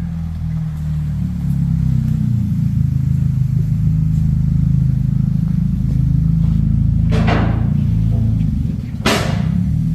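Music with a heavy bass line and drum hits, two sharp hits near the end.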